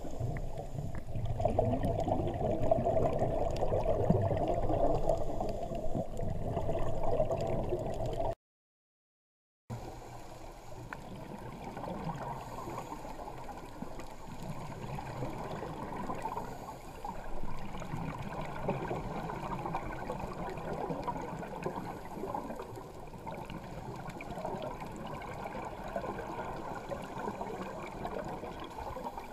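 Muffled underwater water noise picked up by a GoPro Hero3 in its waterproof housing: a gurgling wash, louder for the first eight seconds. It drops to dead silence for about a second, then goes on as a quieter, steady wash.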